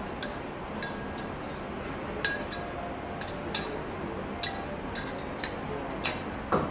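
Scattered light metallic clinks of a steel spatula and utensils against the steel cooking surface and the bowl, about a dozen at irregular spacing over a steady kitchen background noise. A louder, duller knock comes near the end.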